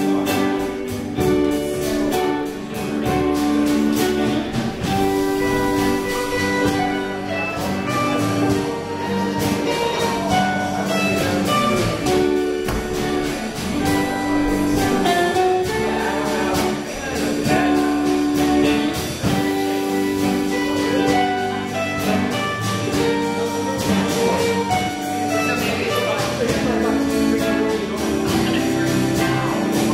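A live rock band plays a tune: electric guitars, bass guitar and drum kit, with long held notes over the drums.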